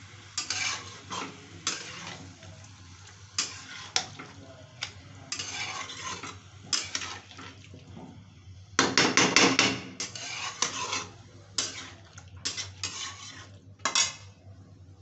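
Flat metal spatula scraping and stirring chicken and onions in a metal kadhai: an irregular run of scrapes, with a fast, loud flurry of strokes about nine seconds in. The last scrape comes shortly before the end.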